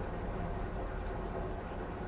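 Washing machine running a strong cycle: a steady low rumble and motor hum with no breaks.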